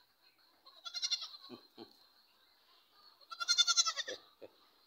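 A young goat kid bleating twice, high and quavering, the second bleat louder than the first.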